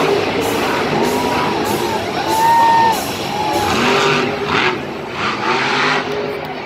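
Monster truck's supercharged V8 engine revving up and down in several bursts as the truck drives across the dirt.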